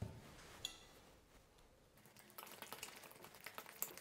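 Near silence for about two seconds, then a metal fork stirring cream cheese batter in a glass bowl: faint, quick scrapes and light clinks.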